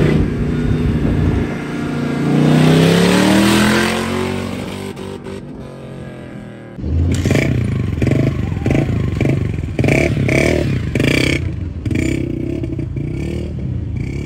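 Lifted off-road 4x4 engine revving: one long rev rising in pitch, then dying away. After a sudden cut about halfway through, a quick rhythmic run of engine pulses, about two a second.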